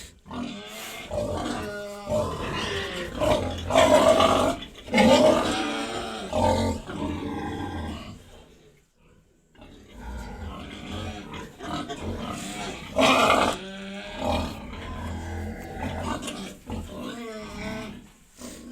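Pigs calling one after another, at times overlapping, with a break of about a second and a half near the middle.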